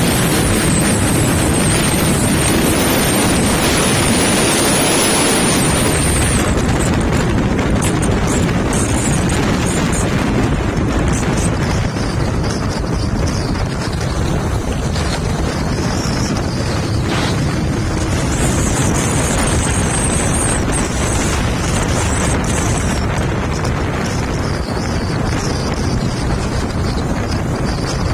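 Wind buffeting the microphone of a moving motorcycle: a steady, loud rush with the bike's engine and tyre noise underneath.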